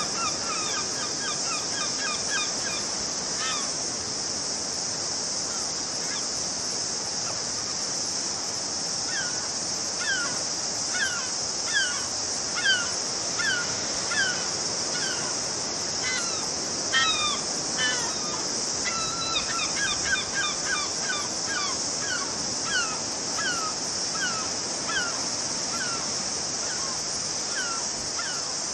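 Birds calling over and over, short downward-sliding calls, a few in the first seconds and then a run of them about one to two a second through most of the rest, over a steady hiss.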